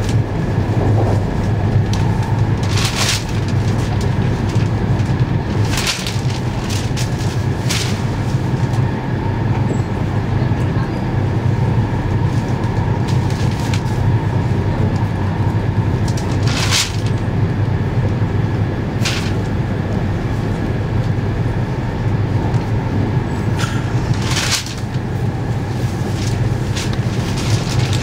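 Running noise of a JR East E2-series Shinkansen heard inside the passenger cabin: a steady low rumble, with a sharp click or knock every few seconds.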